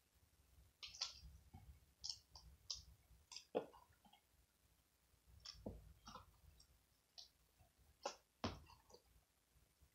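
Slime being kneaded and stretched by hand, giving faint, irregular sticky clicks and small pops, with a few louder pops among them.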